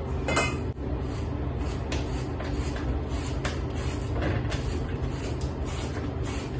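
Kitchen food preparation: a steady low hum under a few light clicks and scrapes as green plantains are handled over a bowl at the counter.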